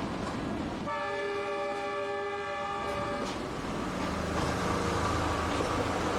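Train horn on a small train of the Yunnan–Vietnam metre-gauge railway, one long blast of about two seconds as the train leaves. A low steady hum follows near the end.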